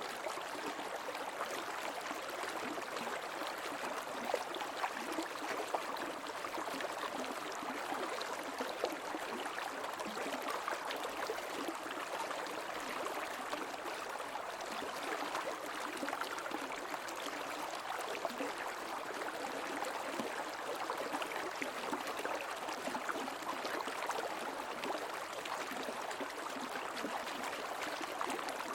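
Creek water running steadily over stones, an even rushing and gurgling with small flickers of splashing.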